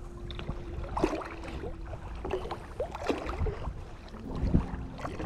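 Water sloshing and splashing around a float tube on the water, with wind rumbling on the microphone. There are a few short knocks and squeaks, and a faint steady hum in the first couple of seconds.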